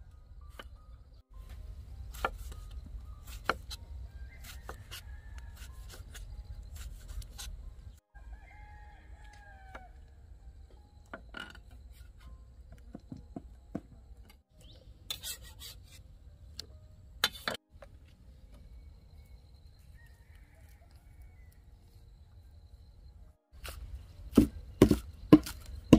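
Cleaver chopping on a round wooden chopping block: scattered single knife strikes while tomatoes are sliced, then a quick run of chops near the end as green onions are cut. A rooster crows in the background about a third of the way in.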